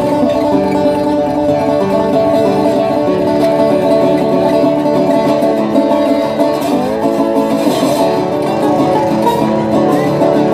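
A plucked string instrument playing a melody of held notes, with a short gliding sound passing through about two-thirds of the way in.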